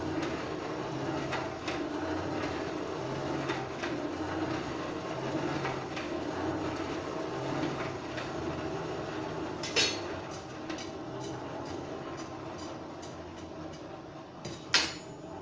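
A blacksmith's forge running steadily as a bar heats in the fire, a continuous rumbling hiss over a low pulsing hum. Two sharp knocks, about ten seconds in and near the end.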